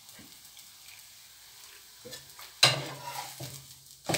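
Dosa frying quietly in butter in a nonstick pan. About two and a half seconds in, a slotted spatula scrapes under it, and near the end there is a slap as the dosa is flipped over onto the pan.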